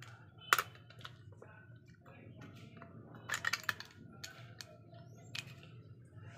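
Plastic clicks and rattles as a small screwdriver backs out a screw and the battery compartment cover of a plastic toy is pried off: one sharp click about half a second in, then a quick cluster of clicks a little past three seconds, with a few lighter ticks after.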